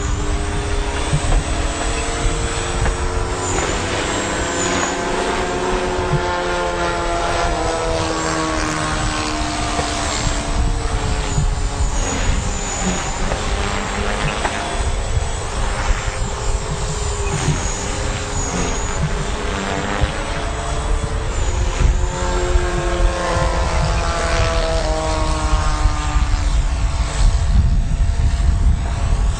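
Art-Tech Shark 450 II radio-controlled electric helicopter in flight: its motor and rotor whine slides up and down in pitch as it manoeuvres and passes. Underneath is a steady low rumble.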